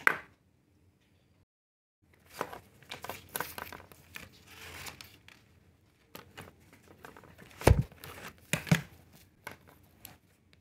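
Crinkling and tearing sounds, with a sharp tap at the start and two louder knocks a little past the middle.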